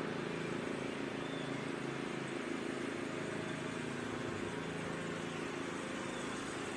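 Steady low hum over faint outdoor background noise.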